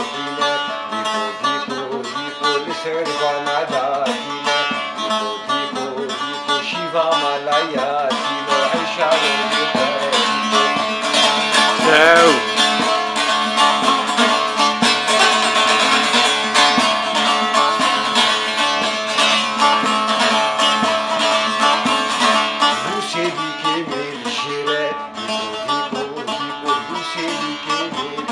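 Long-necked saz (bağlama) played with rapid strummed and picked strokes in a dense, continuous instrumental passage, with a brief flourish about twelve seconds in.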